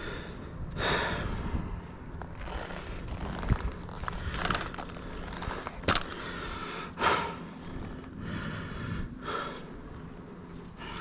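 A tree climber's heavy breathing, a long hard breath about every two to three seconds, with two sharp knocks in between.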